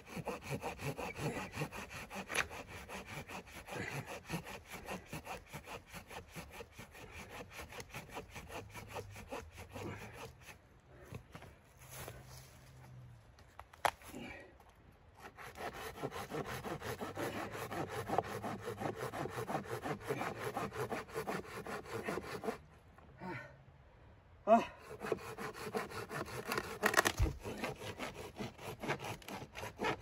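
Small hand saw cutting through a dry dead log in quick back-and-forth strokes, with a few pauses. Later come several sharp cracks of the dry wood as the partly cut log is bent.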